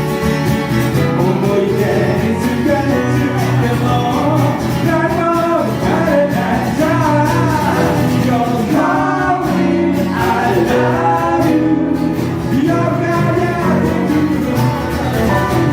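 A song performed with a singing voice over guitar accompaniment.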